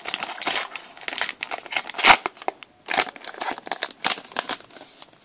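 Foil booster-pack wrapper crinkling and tearing as it is pulled open by hand, in irregular crackles. The loudest is about two seconds in, and it dies down near the end.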